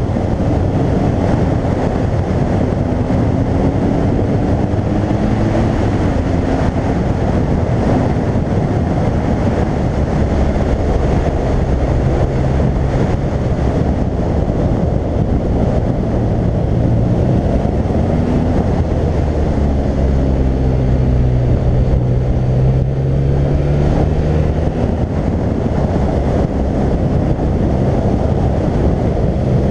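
BMW R1200GS flat-twin boxer engine running on the move, under a heavy rush of wind on the helmet-mounted camera; its pitch rises and falls several times as the throttle is opened and eased.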